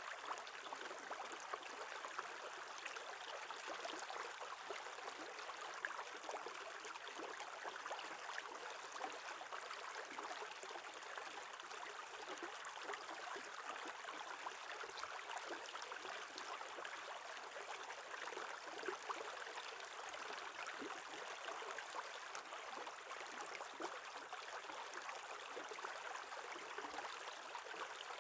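Small stream flowing under an edge of shelf ice: a steady, faint rush of running water with scattered small ticks.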